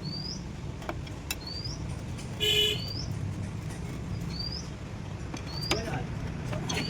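A bird repeating a short rising chirp about every second and a half, over a steady low hum. A little before the middle a brief, louder pitched tone sounds once, and there are a few faint clicks.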